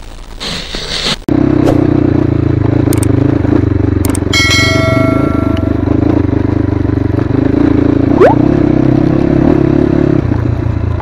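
Crossfire HJ250 dirt bike's engine running steadily while riding, cutting in suddenly a little over a second in after quieter intro sounds. A short steady beep lasting about a second sounds about four seconds in.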